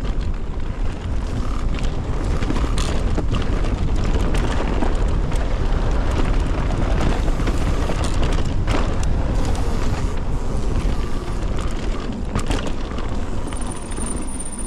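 Mountain bike descending a rough dirt trail at speed: heavy wind rush on the camera microphone over tyre roar, with scattered knocks and rattles from the bike over bumps, easing a little near the end as it slows.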